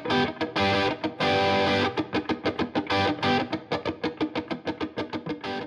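Outro music led by electric guitar: a quick run of picked notes, with a chord held for about a second shortly after the start.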